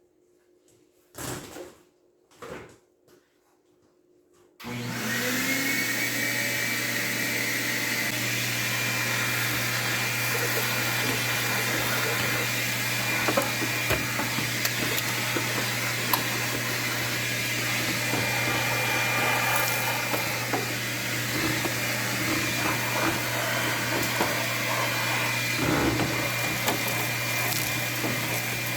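A few soft handling knocks, then about four and a half seconds in a vacuum cleaner switches on, its motor whine rising as it spins up, and runs steadily with occasional small clicks.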